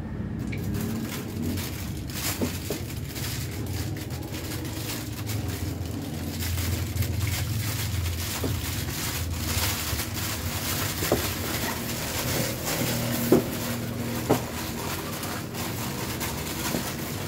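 Plastic bags and packaging rustling and crinkling as drum-kit pedals and cables are wrapped and packed, with a few light handling knocks in the second half.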